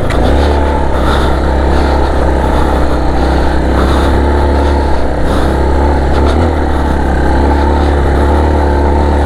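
Motorcycle under way on a dirt trail: steady engine drone with a heavy low wind rumble on the microphone.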